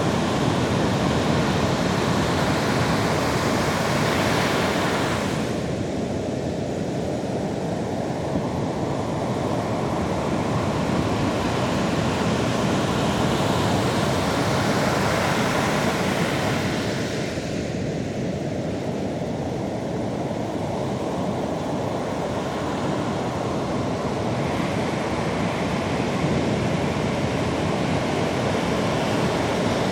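Sea surf washing on the East Sea shore: a continuous rush of breaking waves that swells and eases every several seconds.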